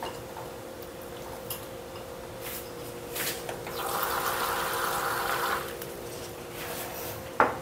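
Water running from a tap for about two seconds, starting about four seconds in, over a steady hum, with a few light knocks just before it.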